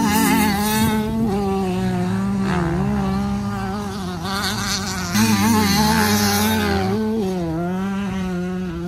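Dirt bike engines running, their pitch rising and falling as the riders throttle on and off, louder for a couple of seconds past the middle.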